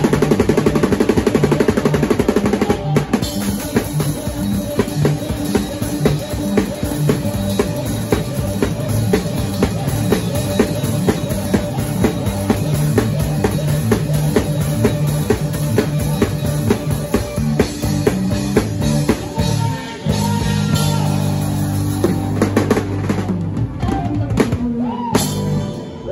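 Drum kit played with a live band in African praise gospel music: bass drum, snare and Meinl cymbals hit densely over a repeating bass line. About twenty seconds in, the drumming thins out under held low notes, and the music drops away at the very end.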